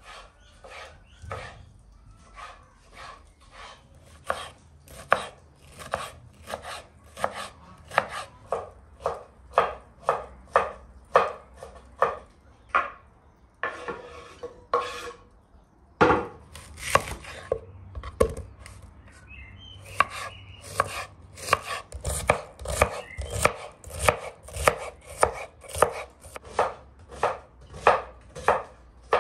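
Kitchen knife chopping vegetables on a wooden cutting board in steady strokes, about two a second. About halfway through comes a brief scrape as the chopped pieces are pushed off the board, then the chopping picks up to about three strokes a second.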